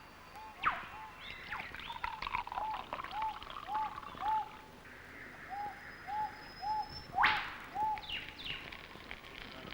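Birds calling: one repeats a short arched note about twice a second, others chatter over it, and twice, about a second in and again near the end, a loud, sharp rising whip-crack call cuts through.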